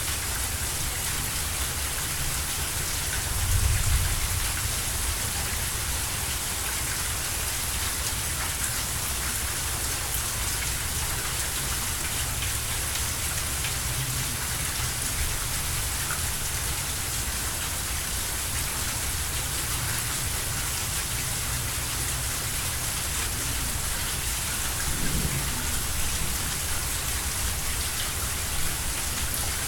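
Steady rain falling on a soaked lawn with standing puddles, an even hiss of drops. A brief low rumble swells about four seconds in, and a fainter one comes near the end.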